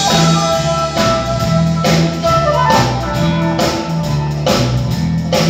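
Live band music: a transverse flute plays a melody, with a falling run around the middle, over a drum kit keeping a steady beat and a repeating low bass line.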